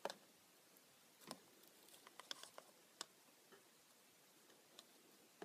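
Near silence, broken by a few faint, scattered clicks and taps of a tool against a plastic container. The loudest comes right at the start, with a small cluster in the middle.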